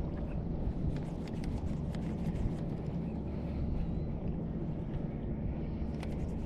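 Wind rumbling on the microphone over shallow bay water, with a scatter of small sharp clicks and light splashes.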